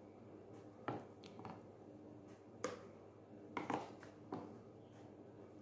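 Metal spoon scooping thick hummus out of a plastic food processor bowl onto a plate, giving about half a dozen short, soft knocks and scrapes spaced irregularly.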